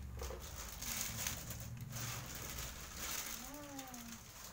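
Plastic wrapping around a new oven toaster crinkling and rustling as the toaster is handled and lifted out of a cardboard box.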